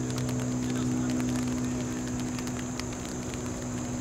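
A steady engine hum with a low drone that eases off about two and a half seconds in, under a faint steady high hiss.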